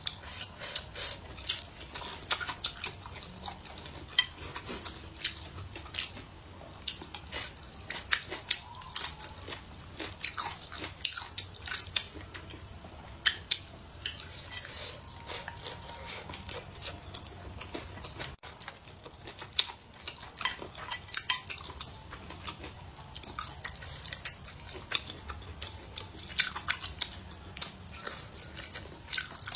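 Wooden chopsticks clicking and scraping on a ceramic plate, many short taps throughout, with chewing and mouth sounds of someone eating.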